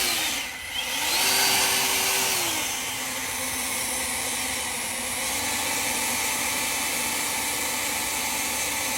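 A small motor running steadily with a hissing rush of air. Its pitch rises briefly about half a second in and drops back about two and a half seconds in.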